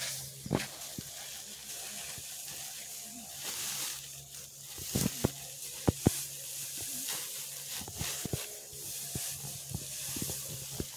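Rustling and crinkling of a woven plastic sack filled with rice grain being handled on a tarp among straw, with a few sharp clicks about halfway through.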